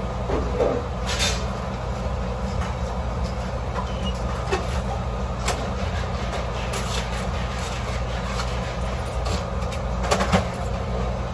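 Steady low mechanical hum with scattered short clicks and clatters; the clearest come about a second in, around the middle, and near the end.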